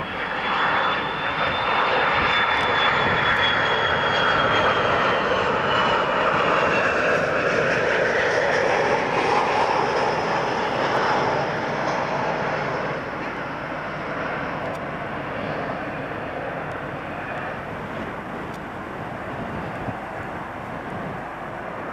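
Jet airliner engines passing low on landing approach: a loud rush with a high whine that falls in pitch over the first several seconds, easing after about twelve seconds to a steadier, quieter rumble.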